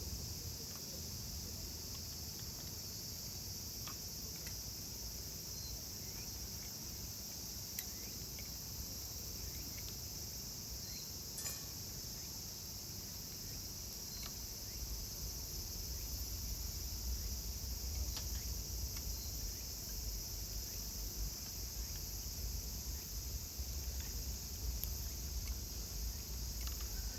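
Steady high-pitched chorus of insects calling continuously, with a low rumble that grows stronger about halfway through and a few faint scattered clicks.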